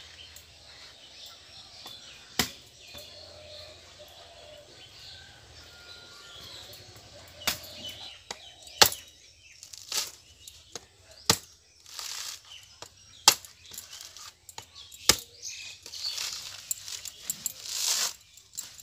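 A blade chopping into a coconut's fibrous husk: single sharp chops every second or two. Near the end, rough ripping as the husk fibres are torn away by hand, with faint bird chirps in the background early on.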